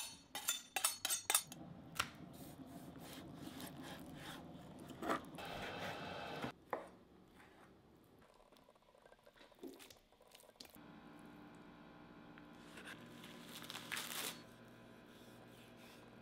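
A kitchen knife being honed against another blade, quick metal-on-metal strokes for about a second and a half, then a knife cutting raw pork on a wooden cutting board, with a few scattered knocks of the blade on the board over a low steady hum.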